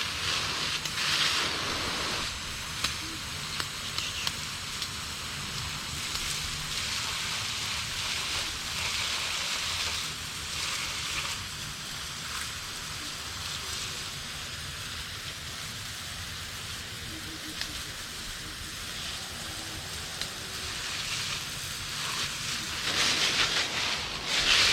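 Water spraying hard from a hose onto a porch floor, a steady hiss that swells and eases as the spray is moved over the surface to rinse dirt off.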